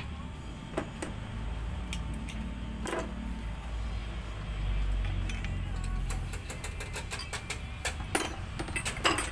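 A low vehicle engine rumble that swells around the middle and then eases, followed near the end by a quick run of sharp clicks and knocks.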